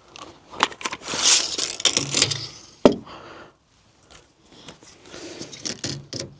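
Rustling and scraping handling noise, with a sharp click about half a second in and a louder one near the three-second mark.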